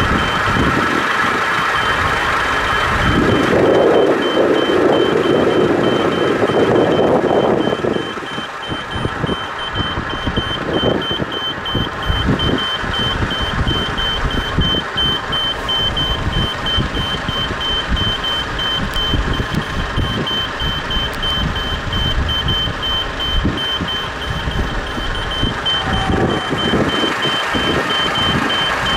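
Level-crossing warning signal beeping: an even series of high electronic beeps while the red light is lit, warning that a train is coming. A loud, uneven rumble runs underneath and is heaviest a few seconds in.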